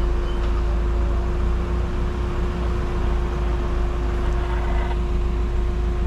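Off-road vehicle driving slowly up a muddy dirt track, with a steady low engine and road rumble and a constant hum.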